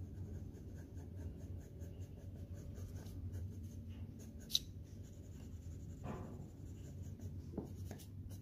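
Coloured pencil scratching across paper in short repeated shading strokes, over a faint low hum. A sharp click about four and a half seconds in.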